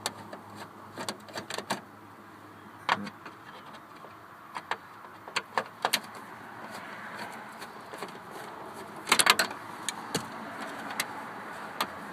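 Scattered sharp clicks and taps of a screwdriver on screws and plastic dashboard trim as the two screws holding the dash cover are taken out, with a quick cluster of clicks about nine seconds in.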